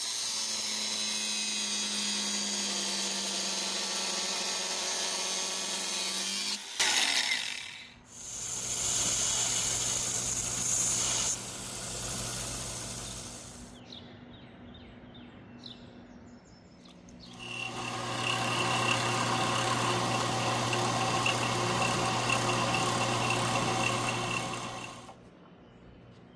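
Electric workshop power tools running in separate stretches: a steady motor run for about six seconds, a shorter run, then another steady run from about two-thirds of the way in that stops near the end.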